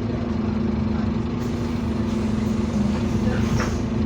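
Scania double-decker bus running with a steady low engine hum and rumble, and a hiss that comes in about one and a half seconds in.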